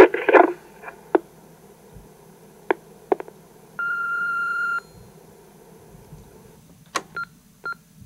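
Panasonic answering machine playing back a recorded incoming message: a brief snatch of voice at the start, a few clicks, then one steady beep about a second long. Near the end comes another click and a run of short beeps at the same pitch.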